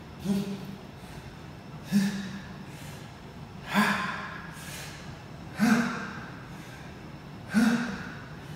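A man's short, forceful voiced exhalations, one with each rep of fast 25-pound dumbbell bicep curls, about every two seconds, five in all: the strained breathing of a burnout set.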